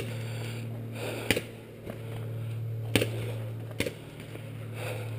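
A few sharp pops of paintball markers firing at uneven intervals, over a steady low hum.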